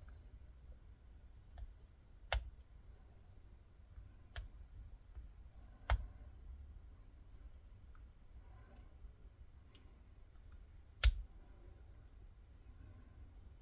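Scattered sharp metal clicks of a pick working the pins of a Black Rhino padlock, with three louder clicks about two, six and eleven seconds in.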